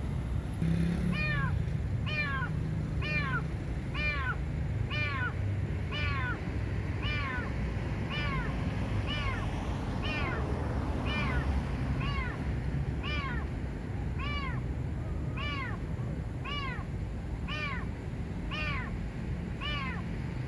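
A kitten trapped in a parked car meowing over and over, about one call a second, each call rising and then falling in pitch. These are the distress cries of an animal stuck in the car.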